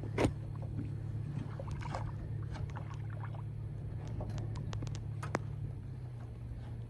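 Boat motor running with a steady low hum, with scattered light clicks and knocks over it.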